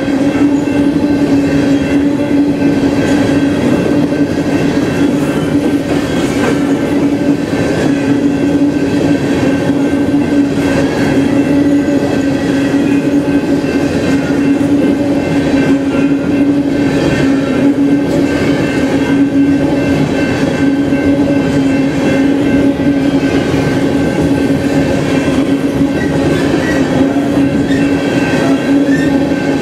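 Freight train of coal gondolas rolling through a grade crossing, its wheels clacking over the rail joints. A steady ringing tone from the active crossing's bell runs over the rumble, holding the same pitch throughout.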